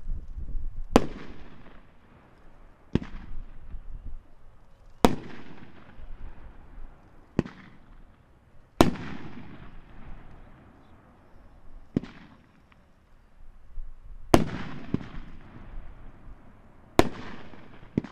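Dominator Mammoth Peony 500 gram fireworks cake firing, its aerial shells bursting as sharp booms roughly every two seconds, about eight in all, each trailing off in a rumbling echo.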